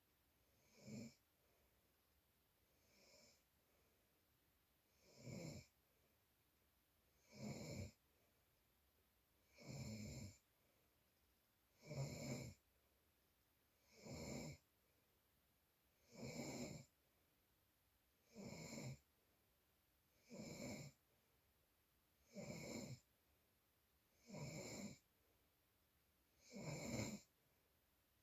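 Snoring in a slow, regular rhythm, one snore about every two seconds, each lasting under a second; the first few are fainter, then they settle into an even loudness.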